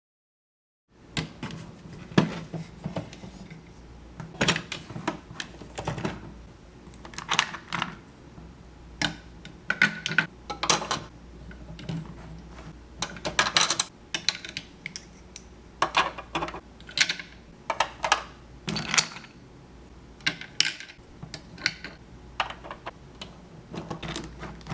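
Irregular clicks, taps and light clatter of small hard plastic items being handled.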